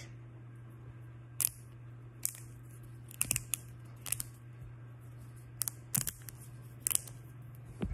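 Plastic snap-link wacky track fidget chain being twisted by hand, its links clicking and snapping at irregular moments, with about ten sharp clicks, a few in quick pairs or clusters.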